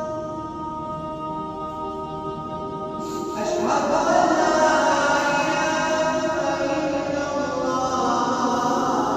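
A man's voice chanting the azaan, the Islamic call to prayer: a long held note tapers off, then a new, louder phrase begins a little over three seconds in.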